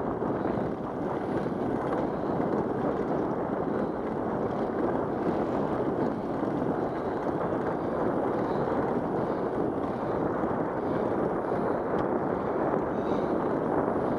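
Steady rushing noise of riding a bicycle along a concrete path: wind on the camera microphone mixed with tyre noise.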